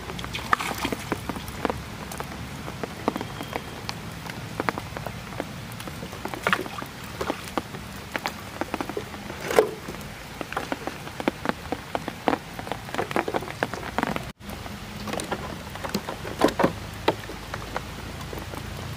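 Rain falling on the water and the bank: a steady hiss with many irregular drop hits.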